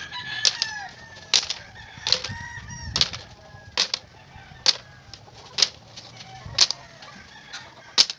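Chickens clucking and calling, with sharp knocks roughly once a second.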